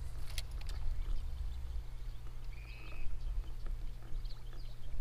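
Outdoor ambience with a steady low rumble and scattered faint bird chirps, including one short, high, steady call about two and a half seconds in.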